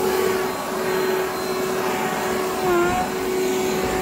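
Kids' battery-powered backpack leaf blower running, its small electric fan motor giving a steady whine that dips briefly in pitch a little under three seconds in.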